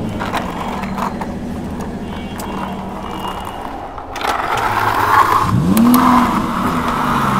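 Battery-operated toy vehicle running, with a steady electronic engine hum. About four seconds in, a louder whirring of its motor and wheels starts, and a short rising tone sounds.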